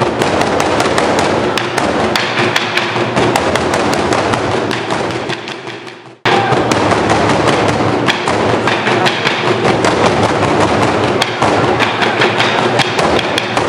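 Burundian drum ensemble: many large wooden barrel drums beaten with sticks in a fast, dense, driving rhythm. The drumming fades away about five seconds in and comes back suddenly about a second later.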